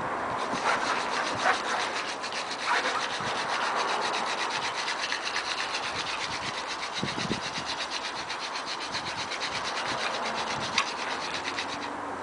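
Elder hand-drill spindle spun between the palms against a willow hearth board: a steady, rhythmic grinding of wood on wood, with a few sharp clicks along the way.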